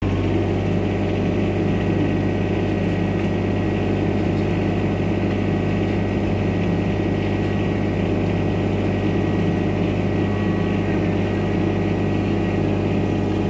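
Shindaiwa DGW280DM II diesel engine welder-generator running with a steady, even drone.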